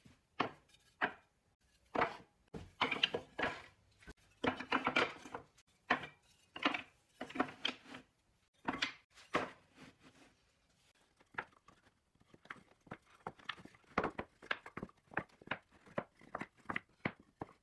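Scrap hardwood sticks being set down and shuffled on a plywood board, making irregular wooden clacks and knocks with some sliding. There is a short lull about ten seconds in, then a run of lighter taps.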